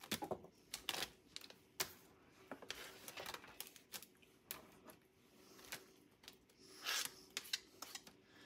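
Quiet, irregular clicks and light rustling of sliced bell peppers and onions being scraped off a plastic cutting board and dropped by hand into a plastic-lined slow cooker, with a louder rustle near the end.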